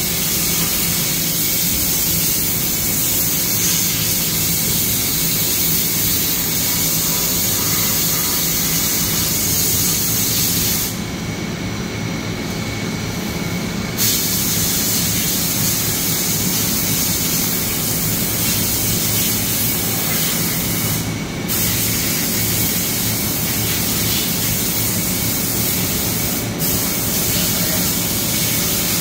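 1995 Dainichi F50 CNC lathe running under power: a loud, steady hiss over a low machine hum. The hiss cuts out for about three seconds partway through, then drops out twice more very briefly.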